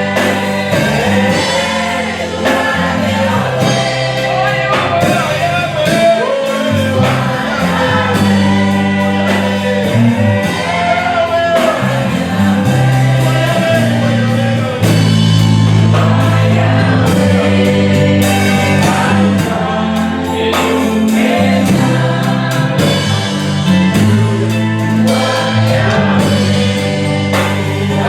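Gospel worship song: congregation and choir singing over a band with bass and drums.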